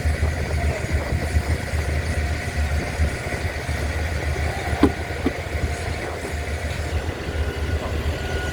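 Steady low rumble of an engine or machine running, with a faint steady whine over it and two small knocks about five seconds in.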